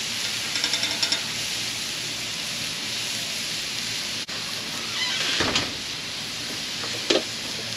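Seasoned redfish fillets sizzling steadily on a smoking-hot griddle as they blacken. A few brief clicks and scrapes come about a second in, with a louder one near five seconds and a short one near seven.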